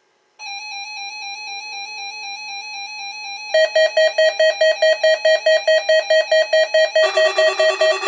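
Midland weather alert radios sounding their alert beeps as they pick up a NOAA Weather Radio Required Weekly Test. One radio starts a pulsed beep, a second, louder beep at a lower pitch joins about three seconds later, and a third, lower one joins near the end, all pulsing about four times a second.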